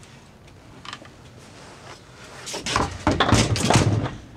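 A leather motorcycle race suit being handled and turned over on a stand: a brief burst of leather rustling and knocking in the second half.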